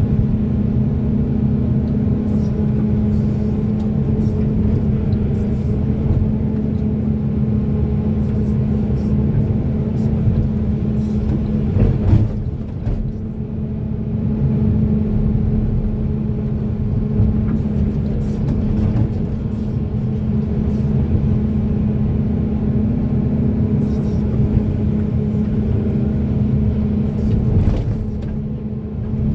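Hydraulic excavator's diesel engine running steadily while digging and loading, with a constant drone and scattered metallic clanks and knocks.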